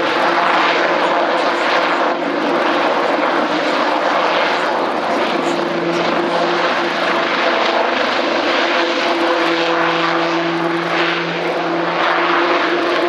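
Eurocopter X3 compound helicopter flying past: a loud, steady drone from its twin turboshaft engines, five-bladed main rotor and two side-mounted propellers, with a held low hum under it.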